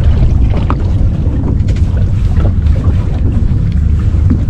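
Wind buffeting the microphone on a small boat at sea, a loud, steady low rumble, with a faint wash of water.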